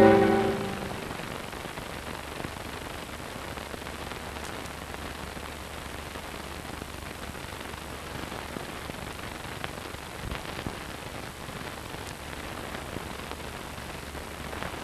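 Closing music fades out within the first second, leaving the steady hiss of an old film soundtrack with a low hum and a few faint clicks and crackles.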